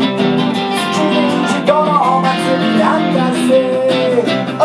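Live acoustic rock-and-roll band music: strummed acoustic guitar in a steady rhythm, with a melody line sliding between notes over it.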